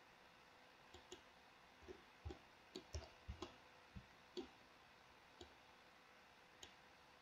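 Faint, irregular clicks of a computer mouse and keyboard, about a dozen, most of them bunched in the first half and a couple more later on.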